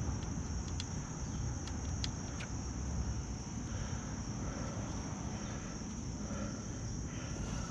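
Steady high chirring of insects, with a low rumble beneath. A few light clicks in the first two and a half seconds.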